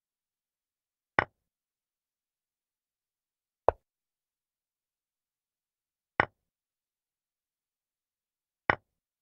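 Chess-move sound effect from an animated board: four short, sharp clicks about two and a half seconds apart, one for each move played, with silence between.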